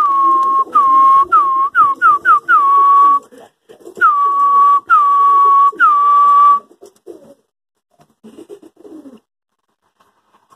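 A quick run of high whistling tones, each sliding down a little and then held for up to a second, about seven in the first three seconds, then three more after a short pause. Low pigeon cooing runs under them and comes again briefly near the end.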